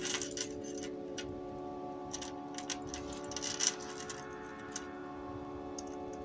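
Tibetan silver charms and chain of a charm bracelet clinking against steel jewellery pliers as a jump ring is worked closed: scattered light metallic clicks and jingles, busiest about three and a half seconds in, over faint steady background tones.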